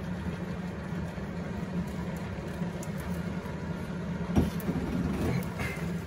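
A steady low mechanical hum runs under the handling of diced ham being tipped into a large stainless steel pot and stirred with a wooden spoon, with one sharp knock about two-thirds of the way in.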